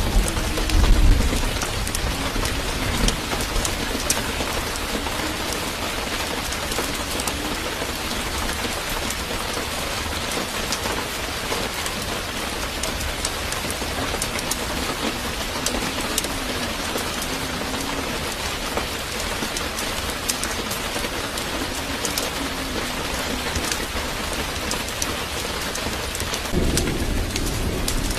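A steady hiss of noise with many fine crackling ticks throughout, and a low rumble about a second in.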